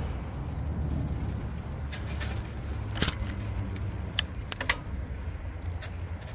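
Bicycle rolling over a paved path: a steady low rumble of tyres and wind on the microphone, with sharp clicks from the bike over bumps, one with a brief metallic ring about three seconds in and a quick cluster a little after four seconds.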